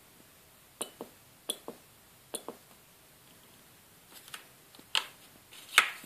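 Sharp clicks and small knocks from hands handling small electronics parts on a desk, mostly in pairs about a fifth of a second apart early on, then a few scattered ones, the loudest near the end.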